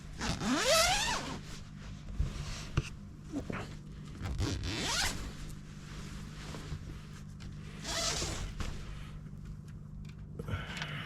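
A zipper pulled several times, each pull a rasp rising in pitch; the longest and loudest pull comes right at the start. A steady low hum runs underneath.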